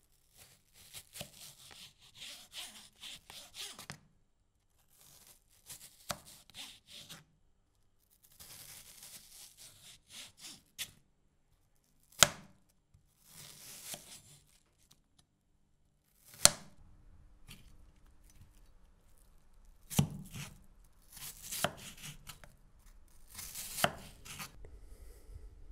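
Kitchen knife slicing through a halved onion on a wooden cutting board: crisp slicing strokes in short runs, broken by sharp knocks of the blade hitting the board, with brief spells of silence between runs.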